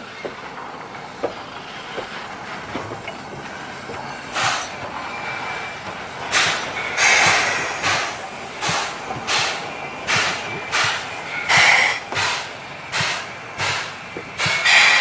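C11 tank steam locomotive's exhaust chuffing, starting about four seconds in and settling into an even beat of about one and a half chuffs a second that grows louder.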